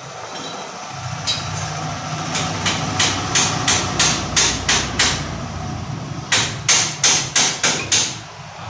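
Hammer blows on the steel frame of a two-row corn planter during assembly: a single strike, then a run of about nine at roughly three a second, a short pause, and about six more. A steady low hum runs underneath.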